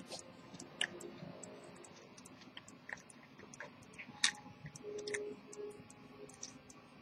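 Small, irregular metallic clicks and taps as an antique gold-cased pocket watch is handled and turned on a mirror stand, with one sharp, louder click about four seconds in.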